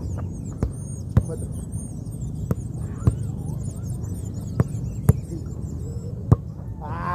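Football kicked back and forth in the air between two players. Seven sharp kicks, mostly in pairs about half a second apart (a touch to control, then the pass), a pair roughly every two seconds, over a steady low hum.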